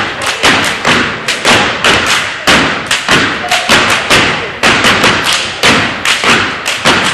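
A step team stepping in unison: stomps on a wooden gym floor and hand claps in a quick, driving rhythm of sharp hits, each echoing briefly in the gym.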